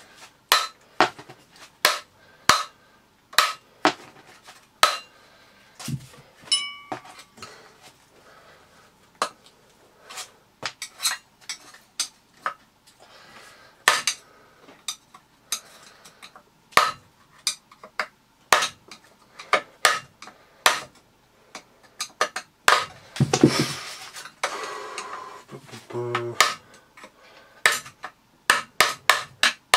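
Sharp metallic taps of a claw hammer on a screwdriver held against the metal fan case of a Miele S2111 vacuum cleaner motor, driving the fan case off the motor. The taps come irregularly, about one a second, with a couple of seconds of scraping near the end.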